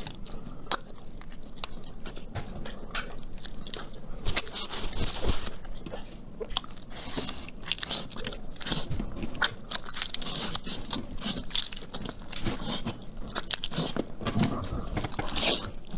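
A person eating close to the microphone: biting and chewing food, with many irregular sharp clicks and short noisy bursts.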